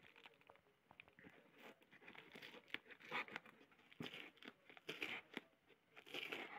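Faint scratching, crinkling and tearing as packing tape is picked at and peeled off a cardboard parcel by hand, in short irregular bursts with a few louder rips.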